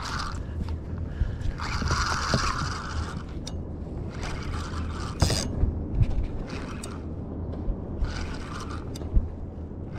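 Spinning reel being cranked in spurts while a hooked fish is reeled in, its gears whirring with a few sharp clicks, over a steady low hum.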